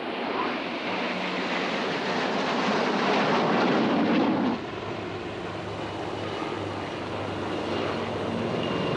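Military jets flying over in formation, their engine noise building to its loudest and then cutting off abruptly about four and a half seconds in. A quieter, steadier aircraft engine drone follows.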